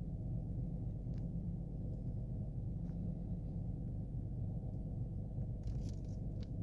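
Car engine idling, heard from inside the closed cabin as a steady low hum, its oil freshly treated with a ceramic oil additive (Liqui Moly Ceratec). A few faint clicks sound over it, the last ones near the end.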